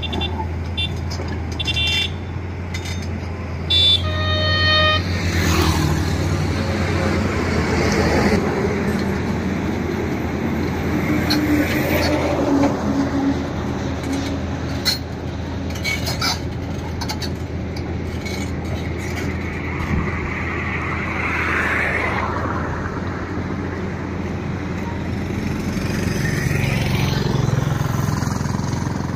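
Heavy diesel engine running steadily as a truck pulls a loaded lowboy trailer forward, with a vehicle horn tooting briefly about four seconds in and road traffic noise.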